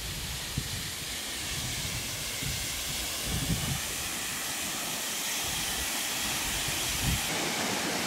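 Waterfall: water falling down a rock face into a pool, a steady rushing hiss with an irregular low rumble underneath.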